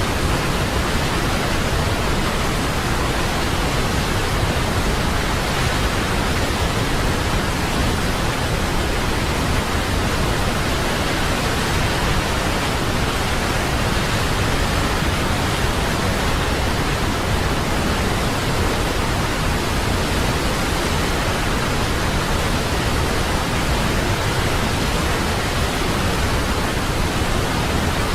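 Waterfall: a steady, even rush of falling water that covers the whole range from deep rumble to high hiss, with no change in level.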